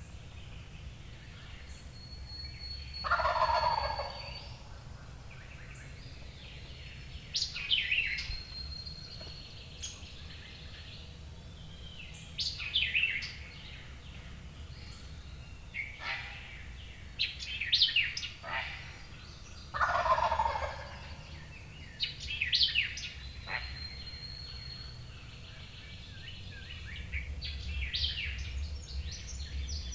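Wild turkey gobbler gobbling twice, once about three seconds in and again around twenty seconds in, each gobble about a second long. Songbirds chirp and sing between and around the gobbles.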